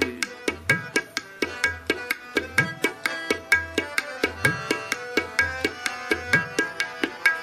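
Tabla playing a quick, steady run of strokes, the bass drum's strokes gliding upward in pitch about every two seconds, over held harmonium notes: the instrumental break between sung lines of shabad kirtan.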